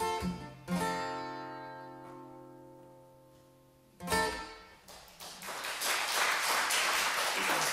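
Twelve-string acoustic guitar playing the closing chords: a chord is left ringing and fades for about three seconds, then one last strum. Applause starts about five seconds in and builds.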